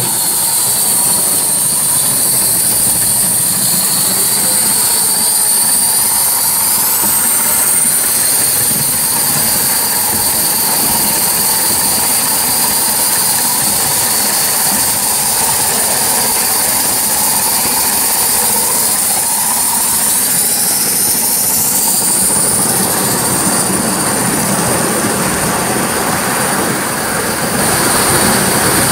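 Gauge 1 live-steam model of an LSWR Adams Radial tank locomotive running along the track: a steady hissing rush with the running noise of its wheels on the rails.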